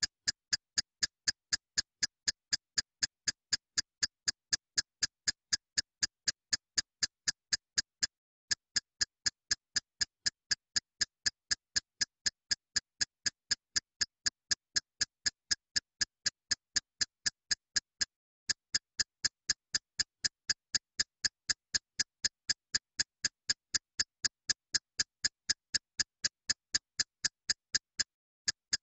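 Steady clock-like ticking, about three sharp ticks a second, with a short break about every ten seconds.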